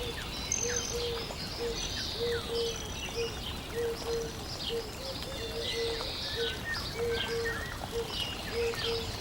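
Birdsong: many birds chirping and twittering, with a low short call, often doubled, repeating about once a second underneath.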